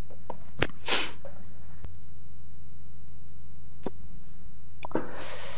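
A steady low electrical hum, with a few isolated sharp clicks and a short rustle about a second in, and another rustle building near the end.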